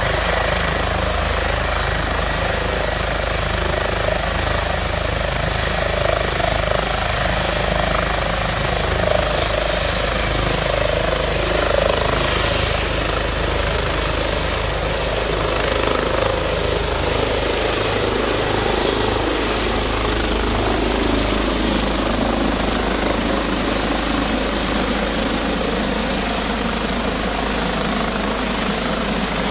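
Airbus H145 helicopter lifting off and climbing away, with a steady loud rotor and twin-turbine noise. A thin high turbine whine rises slightly in pitch over the first several seconds.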